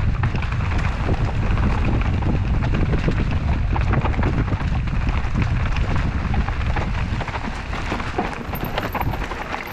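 Mountain bike riding down a rough dirt and root trail: heavy wind rumble on the microphone, with the bike rattling and clicking over the bumps and the tyres rolling on dirt, easing off a little near the end as the bike slows.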